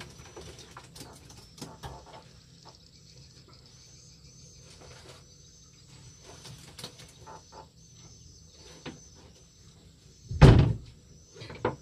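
Scattered light clicks and knocks over a faint steady high-pitched whine, with one heavy thump about ten and a half seconds in.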